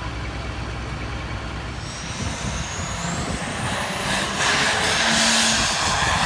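Farm tractor's diesel engine pulling a sled, with a high whistle rising steadily in pitch over a couple of seconds. About four seconds in, the engine grows louder as it works harder.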